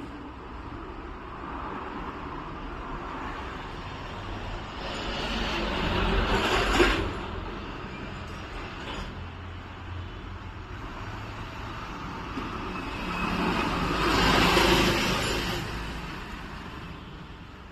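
Road traffic noise: a steady rumble with two vehicles passing, each swelling up and fading away over a few seconds, the first about six seconds in and the second about fourteen seconds in.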